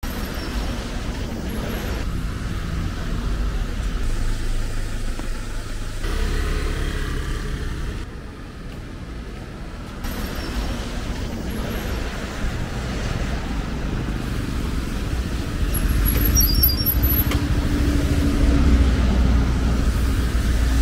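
City street traffic: cars and buses going by with a steady low engine and road rumble. The sound changes abruptly every few seconds.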